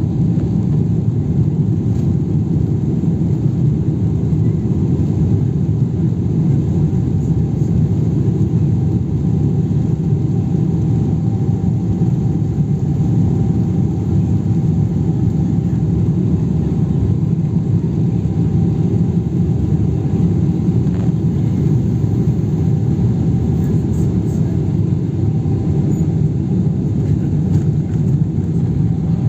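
Steady low rumble inside an airliner cabin, from the running jet engines and cabin air, holding level without rising.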